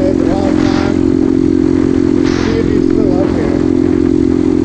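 A mini trail bike's small single-cylinder four-stroke engine runs at a steady pitch under way, its valves freshly adjusted. Wind buffets the microphone in two brief rushes, about a second and two and a half seconds in.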